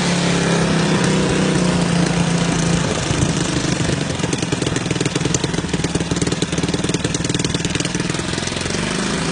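ATV (quad bike) engine running: a steady hum for the first few seconds, turning into a fast, uneven chugging from about four seconds in.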